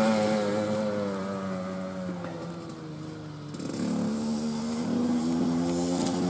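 Dirt bike engine pulling away, its pitch falling and its sound fading, then revving up again a few times in the second half as the bike accelerates into the distance.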